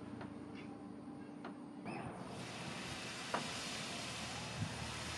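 A few crackles from a coal forge fire over a steady hum. About two seconds in, a steady hiss and sizzle starts as a hot steel knife blade is quenched in water, with a couple of small knocks.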